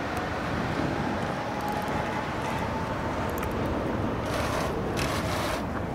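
An elevated train passing: a faint steady whine over a low rumble. About four and five seconds in come two short hissing scrapes.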